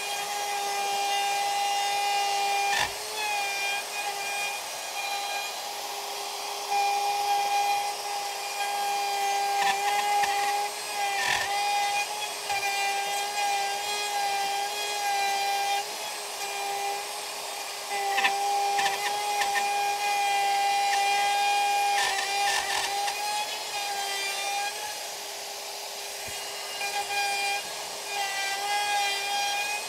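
Radial arm saw running with a steady whine that grows louder in stretches as the blade cuts a slot into the wooden insert, with a few short knocks.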